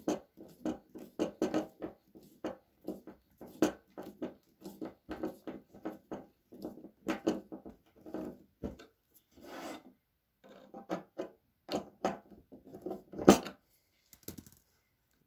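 Wood screw being driven by hand with a screwdriver through a plastic bottle cap into a wooden strip: short rasping creaks with each turn, a few a second, the loudest near the end, then it stops.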